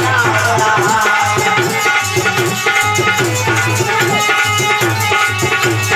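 Instrumental bhajan music: tabla drumming in a steady rhythm under a pitched melody line, with no singing.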